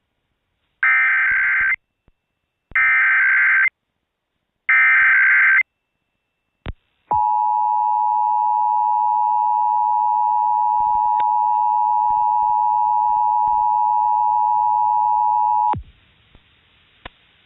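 Emergency Alert System tones broadcast over FM radio: three short buzzy SAME header data bursts of about a second each, then, after a click, the two-tone attention signal (853 and 960 Hz sounding together) held steady for about eight and a half seconds before cutting off sharply, leaving faint hiss.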